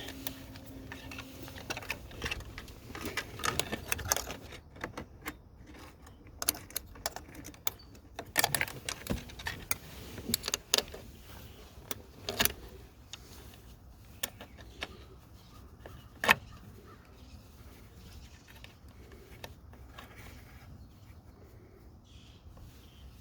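Irregular clicks, taps and scrapes of electrical wires being fished by hand up through the door jamb switch hole of a C3 Corvette, with one sharper knock about two-thirds of the way through.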